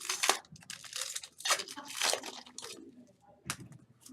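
Foil wrappers of football trading card packs crinkling and tearing as packs are opened and handled, in irregular bursts of rustling.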